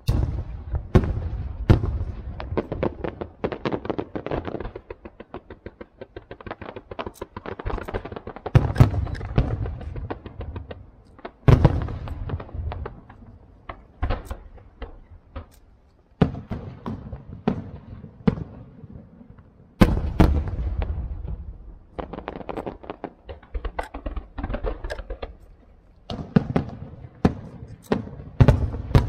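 Aerial fireworks shells bursting in rapid, overlapping salvos: deep booms with rolling echoes, mixed with quick strings of sharp bangs and crackling. The heaviest bursts come at the very start and again about 8, 11, 16, 20 and 28 seconds in.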